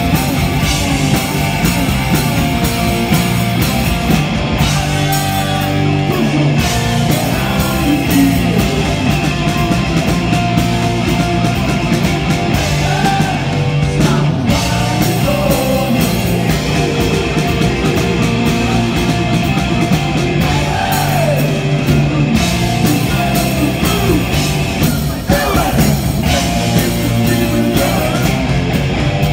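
Live hard rock band playing loud and without a break: distorted electric guitars through Marshall amplifiers, drums, and a singing voice.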